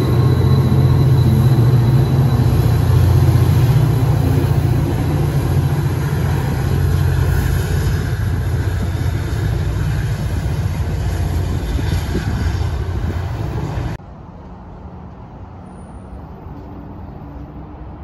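Tri-Rail diesel locomotive 811 pulling away under power, its low engine drone slowly fading as the train recedes. Near the end the sound drops suddenly to a much quieter open-air background.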